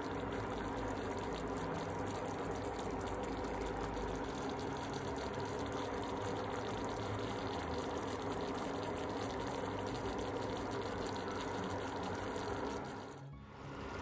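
Cream sauce simmering in a frying pan: a dense, steady crackle of many small bubbles popping.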